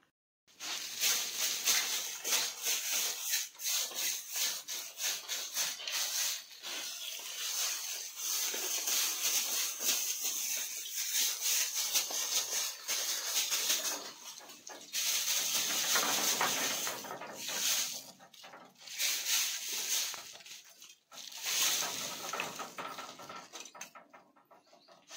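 Rough scraping and brushing noise in irregular strokes, broken by several short pauses.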